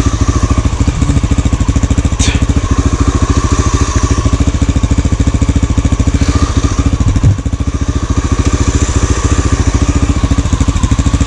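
Enduro motorcycle engine running steadily at low revs close by, with an even pulsing beat and a brief dip about seven seconds in.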